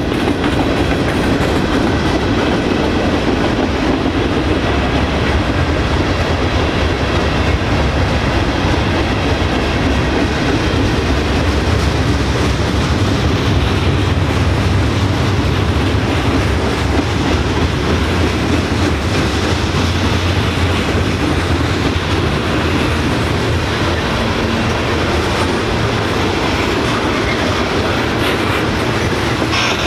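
Freight cars of a long mixed freight train rolling past: gondolas, covered hoppers and tank cars, with the steady rumble of steel wheels on the rails.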